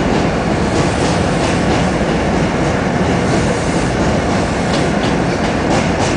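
New York City subway train running on the tracks: a steady, loud noise with faint intermittent clicks.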